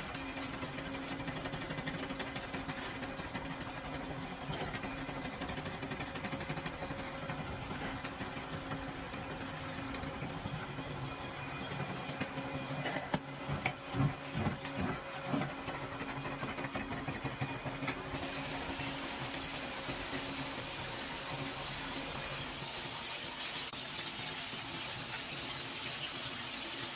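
A machine running steadily with a hum, a few knocks around the middle, then a loud hiss joining about two thirds of the way in.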